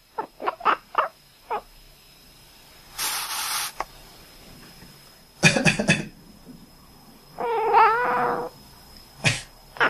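Domestic cat giving a run of short, quack-like calls in answer to a person's coughing, then one long, wavering meow lasting about a second, a little past the middle.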